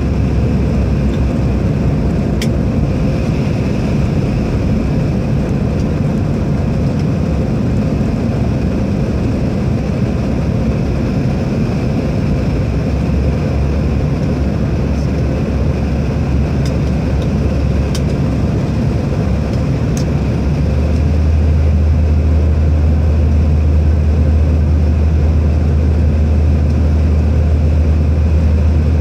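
Steady cabin noise of an airliner in flight: engine and airflow drone with a strong low hum, which grows a little louder about two-thirds of the way through. A few faint ticks sound over it.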